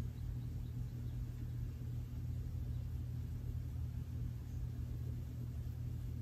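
Steady low hum of room tone, with no distinct sounds over it.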